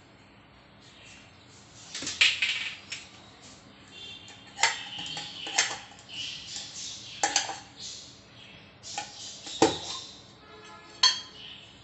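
Dishes and metal utensils clinking and clattering: about six sharp knocks spread out, each with a brief ring.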